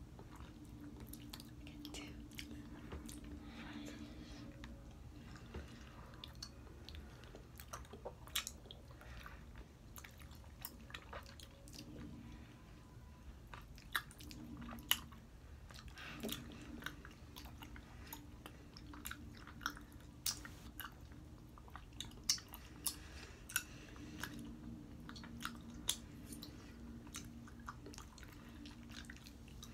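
Open-mouth chewing of gummy bears: wet smacking and sharp lip and tongue clicks, scattered irregularly throughout.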